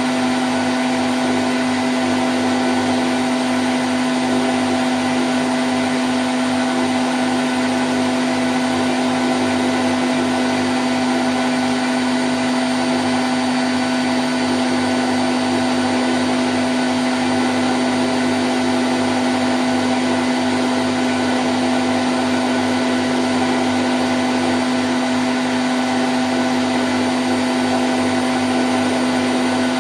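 Candy Grand O' F106 washing machine in its spin cycle at 1000 rpm: a steady, unchanging motor hum with a strong low whine over an even hiss.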